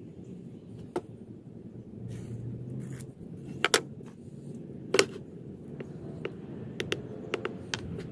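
Hand tools and small wooden offcuts handled on a wooden workbench: a few sharp knocks, two close together in the middle, then a run of light clicks near the end, over a steady low hum.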